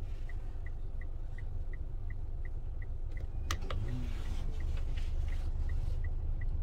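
Low, steady rumble of a vehicle on the move, with an even high ticking about three times a second and one sharp click a little past halfway.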